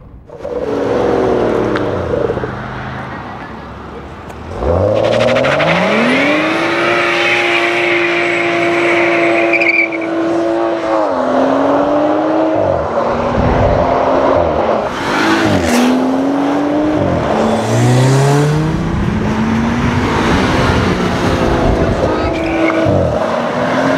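BMW M135i's turbocharged straight-six revs up about five seconds in and is held at high revs for several seconds while the tyres squeal in a burnout. It then accelerates hard, the revs rising and dropping repeatedly through the gear changes.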